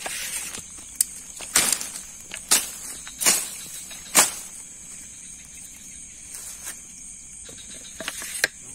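Crickets and other night insects trilling steadily in a high band. Over them come short, sharp handling noises, about six in the first half and a few more near the end, as a freshly caught catfish is being secured.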